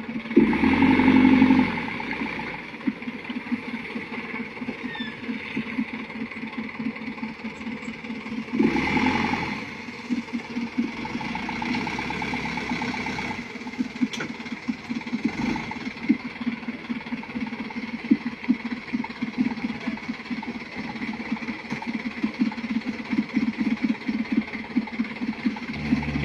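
Mitsubishi light truck's diesel engine labouring at low speed, with a steady rapid clatter and rattle from the loaded truck as it rocks over ruts. The engine swells louder briefly near the start and again about nine seconds in.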